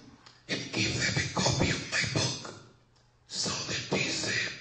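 Speech: a voice talking in two phrases, the first about two seconds long and the second about a second long, with a short pause between.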